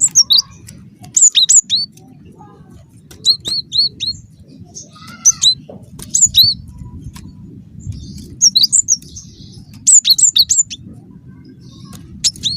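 Cinereous tit (gelatik batu) singing: loud bursts of two to four sharp, high notes, each sliding downward, repeated every second or two. A steady low rumble runs underneath.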